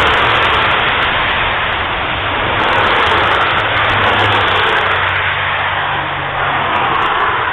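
Motorway traffic passing at speed: steady noise of tyres and engines, with a low engine hum underneath and gentle swells as vehicles go by.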